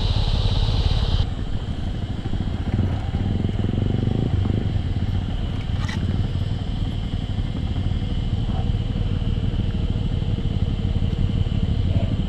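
Yamaha R15 single-cylinder motorcycle engine running with a steady low rumble, over a steady high chirring of night insects, the sound of the forest. One sharp click about six seconds in.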